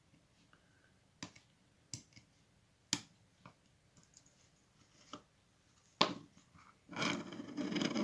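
A standard hook pick clicking against the pins of a Master Lock Excell 80mm Discus padlock while tension is held on the plug: about half a dozen small sharp ticks, a few seconds apart. A sharper click about six seconds in, as the lock gives, is followed by a second or so of louder handling noise near the end.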